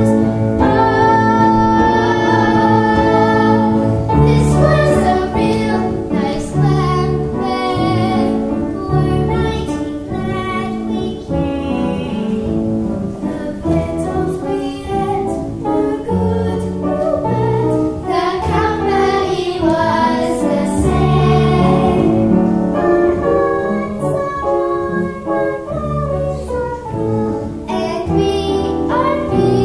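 Young girls singing a song together, with piano accompaniment underneath.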